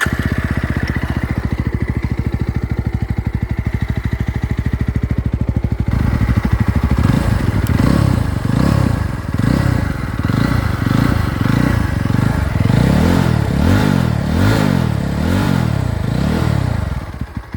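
Yezdi Roadster's 334 cc single-cylinder engine sounding through its twin exhausts. It idles steadily for about six seconds, then is revved again and again in throttle blips, the pitch rising and falling with each. It settles back toward idle near the end.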